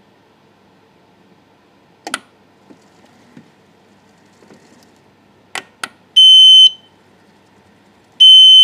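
A Metro Mobility M1 mobility scooter's electronic beeper sounds two short, high, steady beeps about two seconds apart, after a few sharp clicks.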